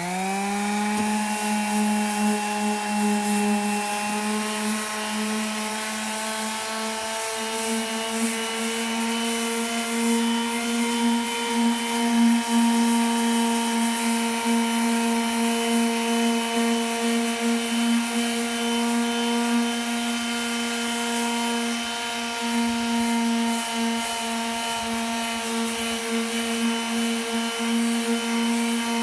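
Electric sander starting up, its motor whine rising to a steady pitch within about the first second, then running steadily while it sands primer with 220-grit paper.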